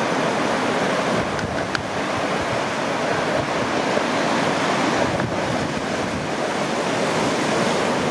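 Steady rush of sea surf, with wind blowing on the microphone.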